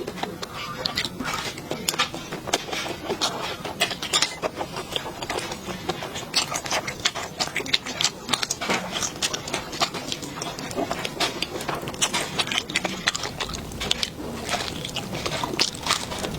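Close-up eating sounds: chewing and lip-smacking, with a steady run of short, sharp clicks and smacks throughout.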